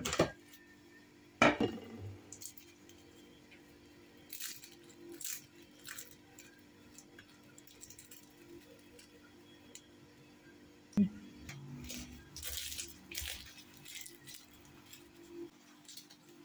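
A knife cuts through crisp baked börek on a wooden cutting board, with a sharp knock of the blade on the board about a second and a half in and again near 11 seconds. The flaky pastry layers crackle in short bursts as pieces are pulled apart by hand, most densely toward the end.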